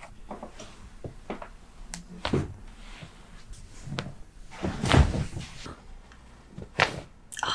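Sounds of a chiropractic neck adjustment: a few sharp cracks and knocks, with a heavy thump about five seconds in, the loudest.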